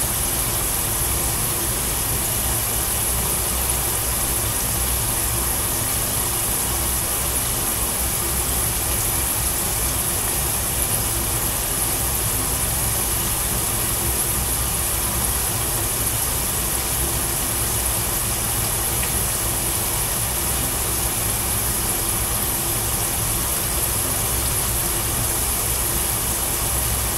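Steady hiss of french fries deep-frying in hot oil in a pot over a gas burner, over a steady low hum.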